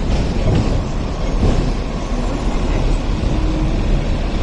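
Hong Kong double-decker electric tram running along its rails: a steady low rumble of wheels on track, with a few knocks in the first second and a half.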